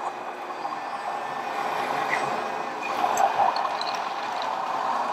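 Radio-controlled scale dump truck and excavator running on a dirt course: a steady mechanical hum from their motors and drive, with a brief crackle about three seconds in.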